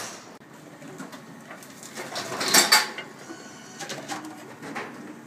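Empty plastic deposit bottles clattering and crinkling as they are handled and fed into a bottle-return machine, with a louder clatter about two and a half seconds in.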